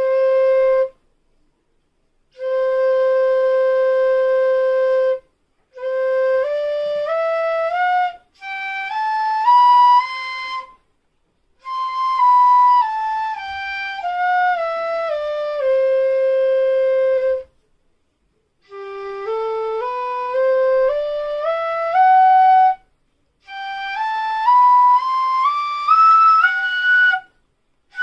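C middle bansuri (Assam bamboo transverse flute) played as a tuning check. It opens with the tonic C held long, then plays stepwise scales up and down the instrument in phrases with short breaths between, from the low G below the tonic up into the upper octave.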